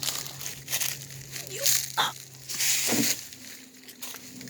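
Crunching and rustling in dry grass and twigs, in short irregular crackles, over a steady low hum, with a brief high squeak about two seconds in.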